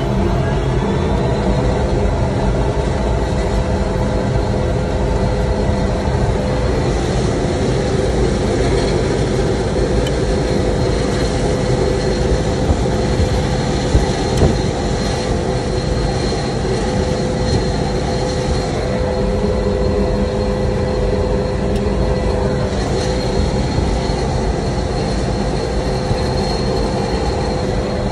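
Pratt & Whitney Canada PT6A-41 turboprop engine spooling up at the end of its start, heard from inside the cockpit. Its turbine whine rises in pitch and levels off at idle about a second in, then runs steadily over a constant low drone from the engine and propeller.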